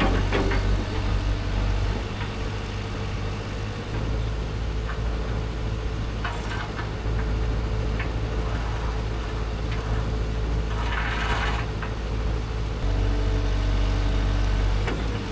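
A tracked excavator's engine running steadily, with a short hiss about two-thirds of the way through. The engine grows louder for the last couple of seconds.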